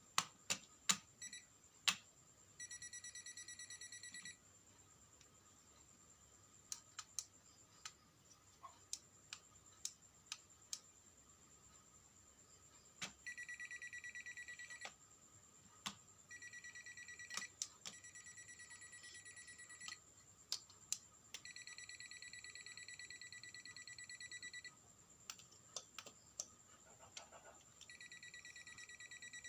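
An electronic buzzer sounds five times, in spells of one and a half to three and a half seconds, among scattered sharp clicks, over a faint steady high whine.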